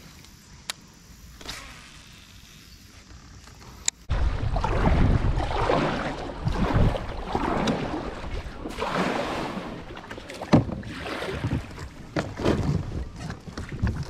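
Kayak paddling: paddle strokes splashing in the water against heavy wind buffeting on the microphone. For the first four seconds there are only a few light clicks, then the noise comes in loud and uneven, swelling every second or so.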